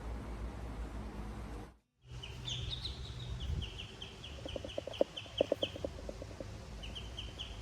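A steady low hum that cuts off about two seconds in. Then a bird chirps over and over in quick short high notes, about four a second, with a run of lower rapid clucking notes near the middle.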